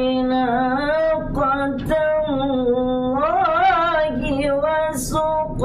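A woman reciting the Quran in melodic tajweed, holding long notes and ornamenting them with wavering turns of pitch, one sung phrase flowing into the next.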